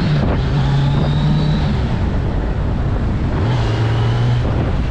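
Kawasaki Z900's inline-four engine running while the bike is ridden. The engine note holds steady for a second or two, drops away, then comes back for about a second near the end.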